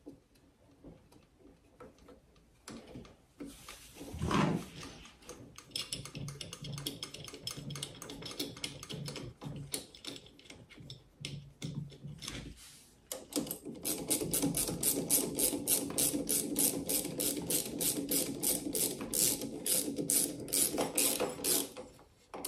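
Ratcheting wrench clicking in two long runs of quick, even clicks as it turns in the jackshaft bolt, with a single knock about four seconds in.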